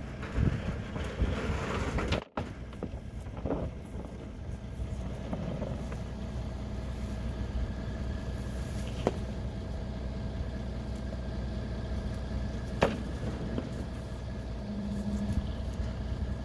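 A motor running steadily with a constant hum, broken by a few sharp clicks and a brief dropout about two seconds in.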